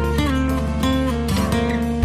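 Instrumental break of a song: held notes and plucked chords, no singing.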